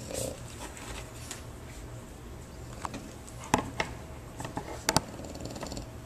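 A sleeping French bulldog snoring softly, the rasping breath of a flat-faced breed. Sharp clicks cut through it, the loudest about halfway through and a quick double click about a second later.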